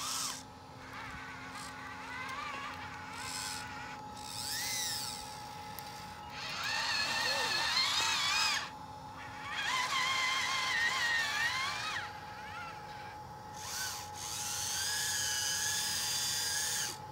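Electric motors of a radio-controlled track loader whining in several bursts as the tracks drive and the servos work the arm and bucket, the pitch rising and falling with each move.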